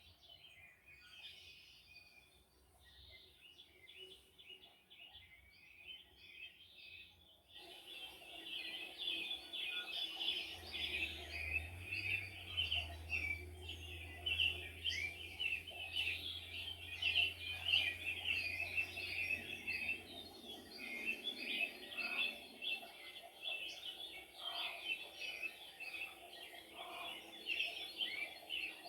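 Many small birds chirping and twittering at once in a dense, continuous chorus, which gets suddenly louder about seven seconds in. A faint low hum sits under it for about ten seconds in the middle.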